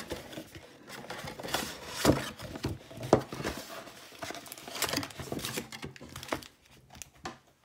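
Crinkling plastic wrap and cardboard packaging being handled and torn while a trading-card box is opened, with scattered sharp clicks and rustles. It falls quiet for about a second near the end.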